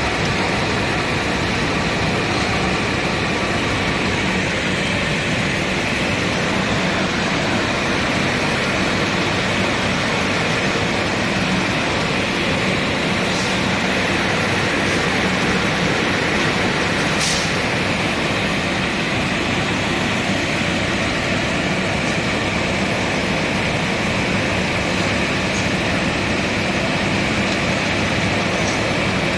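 Woodworking machine running steadily, a continuous loud mechanical noise with a low hum, with two faint brief clicks partway through.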